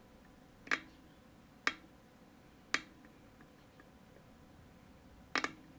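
Sharp clicks of lock picking tools working in a Trioving Twin Control lock: three single clicks about a second apart, then a quick double click near the end.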